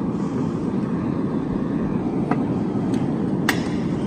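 Forge burner running steadily with an even rushing noise, broken a couple of times by short sharp clinks of steel tongs against the billet and forge mouth as the hot billet is gripped.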